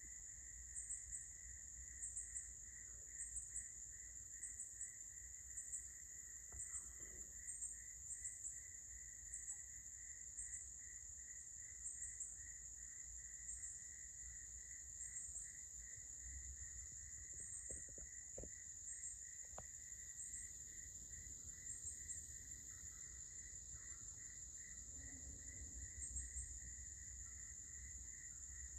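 Chorus of insects and frogs: a steady high-pitched shrill with regular chirps about once a second, over a lower, fast pulsing trill.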